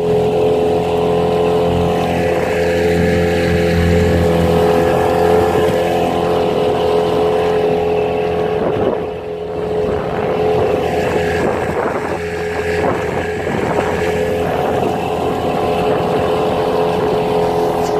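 Outboard motor running steadily at a constant speed, driving a small trailer sailer along, with irregular knocks and splashes of waves against the hull in the middle stretch.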